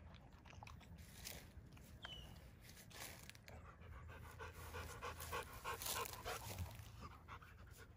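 Rottweiler eating soft raw meat from a steel bowl with a few faint chewing clicks, then lifting its head and panting rhythmically from about four seconds in.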